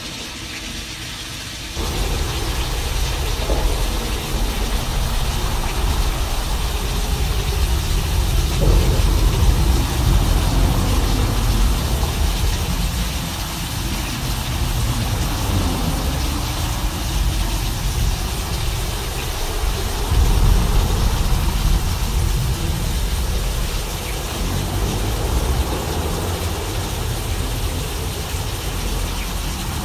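Synthesized imitation of a thunderstorm: a steady rain-like hiss over a deep, continuous rumble. It jumps louder about two seconds in and swells again around ten and twenty seconds in.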